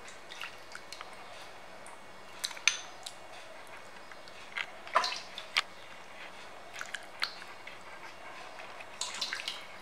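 Scattered sharp clinks and knocks of serving utensils and a ceramic bowl against a steel pressure cooker as chicken curry is ladled out, the loudest near the middle.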